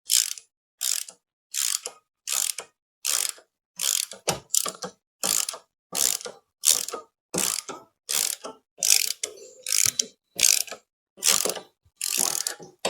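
Socket ratchet wrench clicking in steady back-and-forth strokes, about one and a half a second, as the long 13 mm bottom engine-mount bolt of a Royal Enfield Classic 500 is unscrewed.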